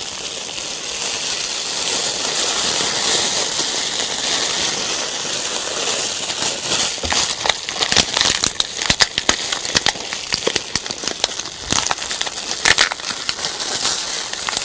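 Fire sound for a film's sound effects: a steady hiss at first, then dense, irregular crackles and pops from about halfway in.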